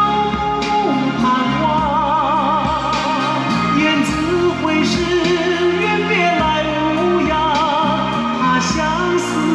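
A song with a singer holding notes in wide vibrato over pitched instrumental backing, played through Yamaha NS-500 two-way loudspeakers with a beryllium dome tweeter, driven by a Yamaha B-2 V-FET power amplifier.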